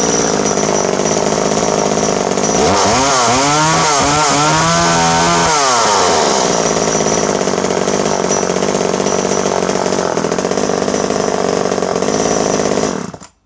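Vintage Danarm 1-36 Mk II two-stroke chainsaw running: it idles, is revved up and down several times, runs on steadily, then cuts off suddenly near the end as it is switched off.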